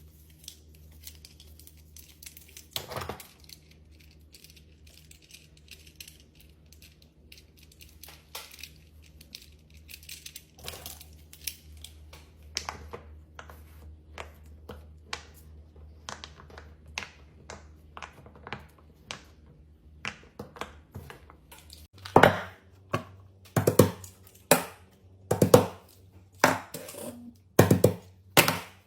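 Hands handling crafting materials, with soft crinkling, tearing and small clicks. Near the end comes a run of much louder sharp pops or taps, roughly one or two a second.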